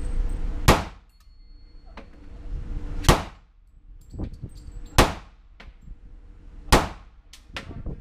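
Four single shots from a .40 S&W semi-automatic pistol, fired slowly about two seconds apart. Each is a sharp crack with a short ringing tail off the walls of an indoor range, with fainter clicks between the shots.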